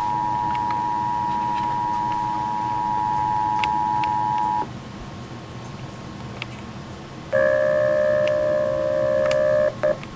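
Emergency Alert System attention signal: two steady tones sounding together, cutting off about four and a half seconds in. After a couple of seconds of hiss, a second, lower steady tone with overtones sounds for about two and a half seconds near the end.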